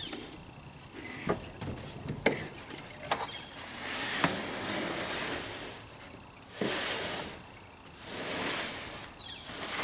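Handling noise from a camper refrigerator being worked out of its cabinet: a few sharp knocks, then stretches of scraping and sliding.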